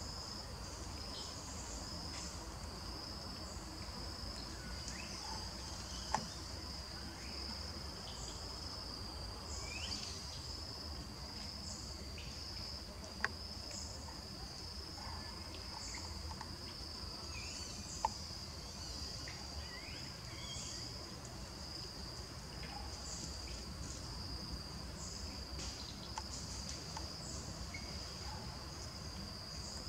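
Forest insects keeping up a steady high-pitched trill, with scattered short chirps over it and three sharp clicks, about six, thirteen and eighteen seconds in.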